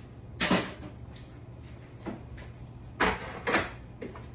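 Kitchen knocks and clatters as things are handled at the counter: one sharp one about half a second in and two close together around three seconds, over a steady low hum.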